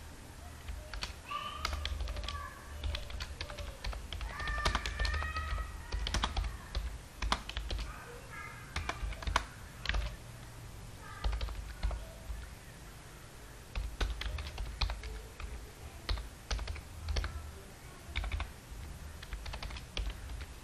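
Typing on a computer keyboard: irregular runs of keystroke clicks with short pauses between. A few short pitched calls sound faintly in the background during the first half.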